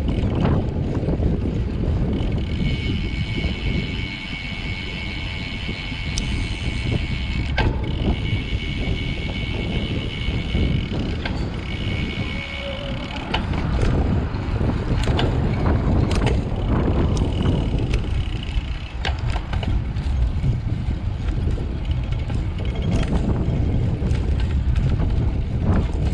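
Wind buffeting the microphone of a riding road cyclist, with road and tyre noise beneath. A steady high two-tone whine comes and goes through the first half, and a few short clicks and knocks sound now and then.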